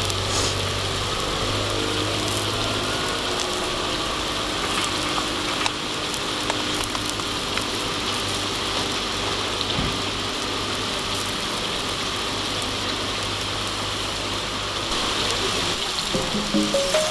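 Food frying and sizzling in a pan over a campfire: a steady hiss with scattered small pops and crackles.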